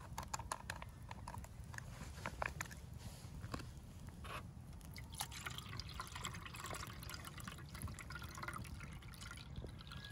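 Water poured from a plastic jug into a steel kettle, a steady splashing stream from about halfway through. A wood fire crackles with scattered sharp pops, most of them in the first half.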